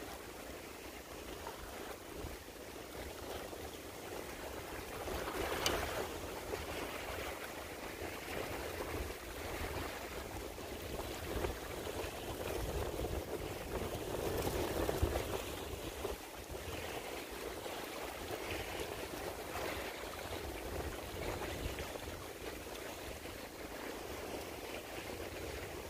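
Steady outdoor noise of wind buffeting the microphone over a rushing, water-like hiss. It swells twice and has one brief sharp tick.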